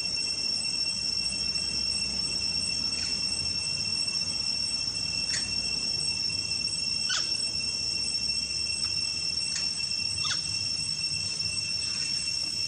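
Steady high-pitched buzzing drone of insects such as crickets or cicadas in the forest, with short squeaky chirps every second or two, each falling in pitch.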